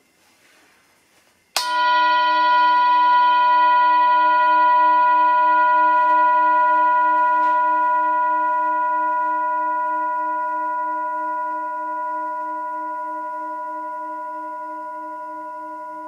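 Large brass bowl struck once, about a second and a half in, ringing like a bell: a long, slowly fading ring of several steady pitches, with a slow waver in the lowest one.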